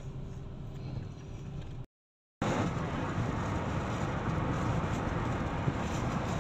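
Steady low rumble of engine and tyre noise heard inside a moving Toyota car's cabin. It drops out for about half a second near two seconds in, then returns louder with more road hiss.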